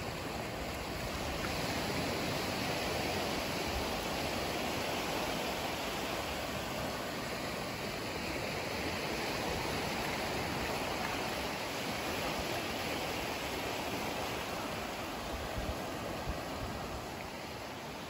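Small Gulf surf washing up onto the sand at the water's edge, a steady hiss of moving water.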